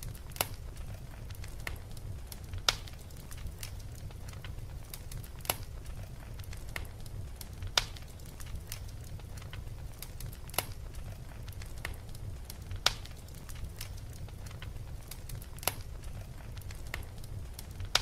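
Crackling fire: sharp, irregular snaps and pops, the loudest every two to three seconds with fainter ones in between, over a low steady rumble.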